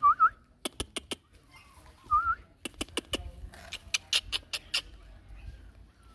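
Puppies whining: two short, wavering high yips, one right at the start and one about two seconds in. Around them are clusters of sharp clicks.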